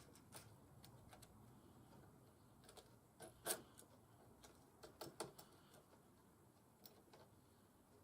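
Faint, scattered clicks and knocks from small parts and tools being handled. The loudest comes about three and a half seconds in, and a quick cluster of them about five seconds in.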